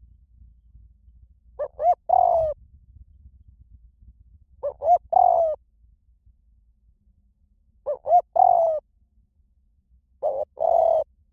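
Spotted dove cooing: four calls about three seconds apart, each a few short rising coos followed by one longer coo.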